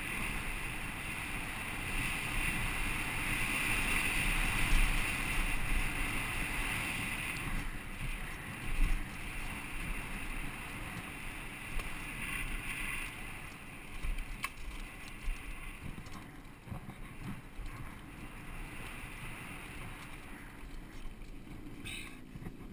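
Downhill mountain bike descending a dry dirt trail: wind rushing over the helmet-mounted microphone, tyres rolling over dirt and the bike rattling over bumps, with scattered sharp knocks, the strongest about nine seconds in. The rush is loudest in the first several seconds and eases as the trail levels out.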